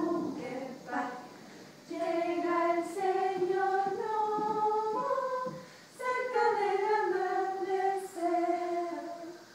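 A small group of women singing a simple melody together in unison, in held, stepping notes, in two phrases with a brief break midway.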